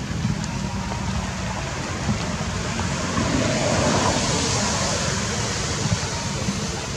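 Steady rain falling on rainforest foliage, a continuous hiss that swells for a couple of seconds about three to five seconds in.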